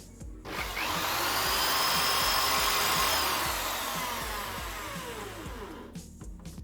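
Homemade wood lathe's motor switched on, spinning up to speed within half a second and running with a whine for a couple of seconds. It is then switched off and winds down, its whine falling in pitch and fading over about three seconds.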